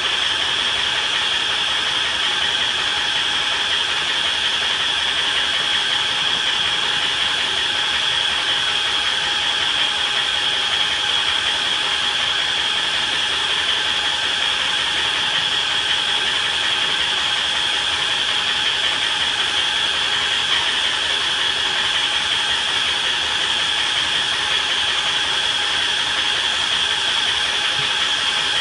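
Steady hiss of a robotic duct-coating sprayer's nozzle atomizing encapsulant onto fiberglass duct board, with a faint steady whine mixed in.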